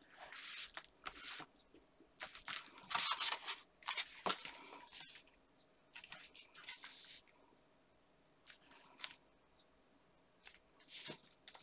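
Paper card being handled and lifted with both hands: short bursts of rustling and scraping card, busiest in the first five seconds, then only a few scattered ones.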